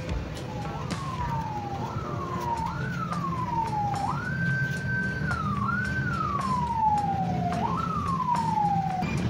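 A siren-like wailing tone that jumps up sharply and slides slowly down, about six times, with one stretch held steady near the middle, over a steady low rumble and a few light clicks.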